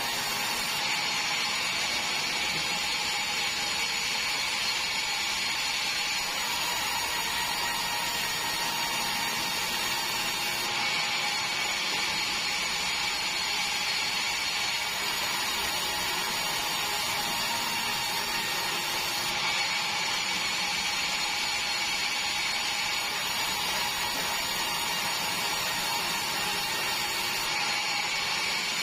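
Sawmill band saw headrig running and ripping a meranti log lengthwise into boards: a steady, unbroken machine whine with fixed tones over the noise of the cut.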